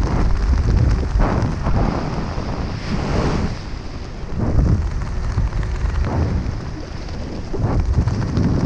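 Airflow buffeting a GoPro's microphone while descending under an open parachute canopy: a low, rushing wind noise that swells every second or two.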